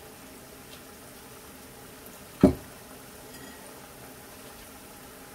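Hot oil bubbling steadily in a wok as black-sesame rice-flour cake batter deep-fries on a wire mold. A single sharp knock about halfway through.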